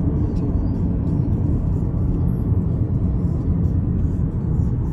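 Steady low rumble of a car on the move: road and engine noise.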